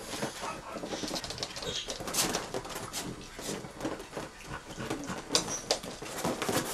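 Wild boar piglets making soft calls and short squeaks, with rustling and small knocks as they move about.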